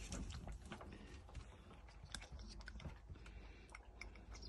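Faint, irregular small clicks and rustles from hands handling a cat's head and mouth while it is being given medicine.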